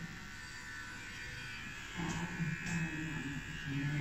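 Electric beard trimmer running with a steady buzz while trimming a beard. A low voice joins it about halfway through.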